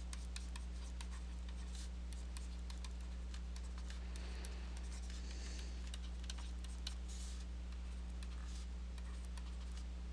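Faint scratching of writing strokes, in short irregular spells with a few soft ticks, over a steady low electrical hum.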